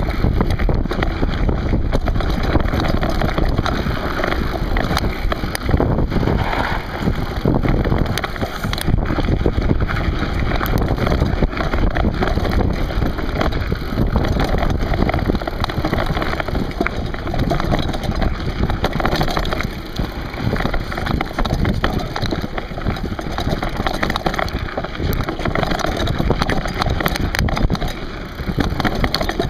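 Wind buffeting the microphone of a camera carried on a moving mountain bike, over the continuous rattle and crunch of knobby tyres on a loose, rocky gravel trail.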